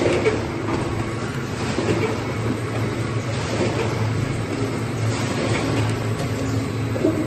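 Snack-tub packaging line running: slat conveyor and labelling machine give a steady low hum with a few clicks and knocks scattered through it.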